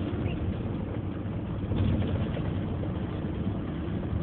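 Steady engine and road noise inside a moving vehicle, slightly louder about two seconds in.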